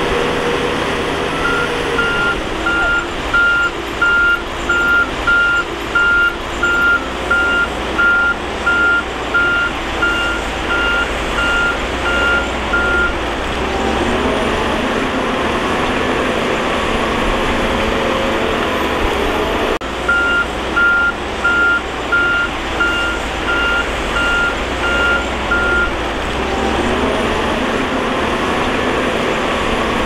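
Bulldozer's diesel engine running, with its reversing alarm beeping at one steady pitch, nearly two beeps a second. The beeping lasts about eleven seconds from near the start, stops, then returns for about six seconds in the last third.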